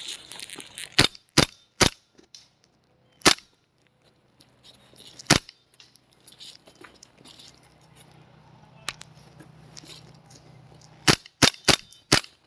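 Airsoft guns firing single sharp shots in irregular bursts: three in quick succession early, two lone shots, then four close together near the end.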